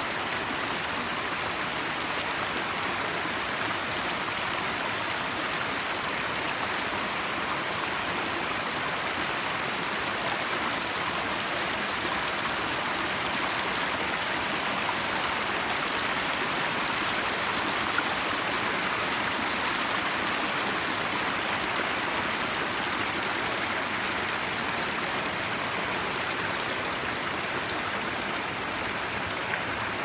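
Mountain stream rushing over rocks and small cascades: a steady, unbroken rush of water.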